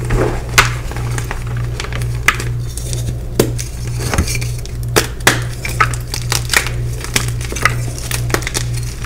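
Dyed gym chalk blocks crumbling in the hands: irregular sharp crunches and crackles, several a second, as the blocks are squeezed and broken into powder. A steady low pulsing hum runs underneath.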